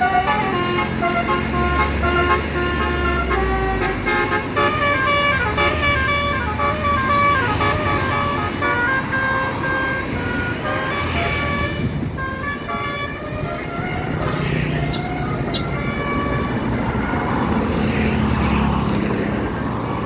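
A bus's multi-note 'telolet' musical air horn playing a tune of quick stepped notes for about the first ten seconds. After that the horn gives way to bus engine and traffic noise.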